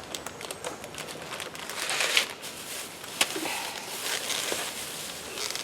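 Food packaging crinkling and rustling with small clicks and taps as picnic food is served out, the rustle loudest about two seconds in and a sharp click just after three seconds.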